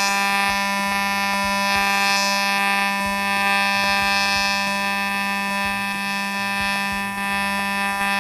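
TIG welding arc on a titanium pipe joint, a steady buzz held at one even pitch through a long continuous run. The welders judge the setting of about 160 amps a little hot.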